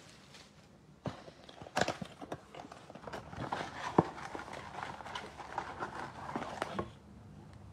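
Hands opening an Illusions basketball card box: a few sharp cardboard clicks and taps, then a dense crinkling rustle of cardboard and wrapper from about three seconds in until near the end.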